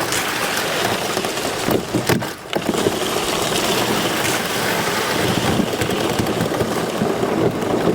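Slush and broken river ice crunching and grinding against a canoe hull as it is paddled through, a dense steady crackle with a brief lull a little after two seconds in.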